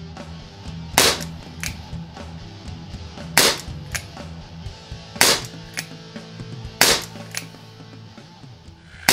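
Webley MKVI CO2 pellet revolver firing four sharp shots about two seconds apart, each followed about half a second later by a fainter tap. Background music plays underneath.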